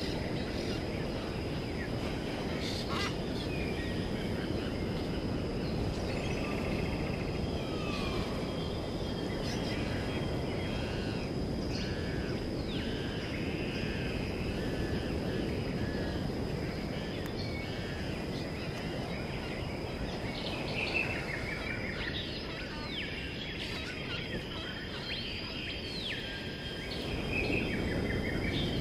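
Birds chirping and calling repeatedly over a steady low rushing outdoor background, with a constant thin high tone underneath.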